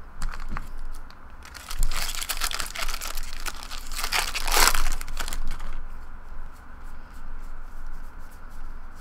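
A foil card-pack wrapper being torn open and crinkled, loudest about four and a half seconds in. After that come light scattered clicks as the cards inside are handled and fanned through.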